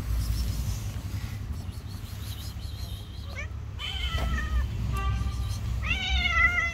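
A cat meowing several times in short calls that rise and fall in pitch, the loudest near the end, over a steady low rumble.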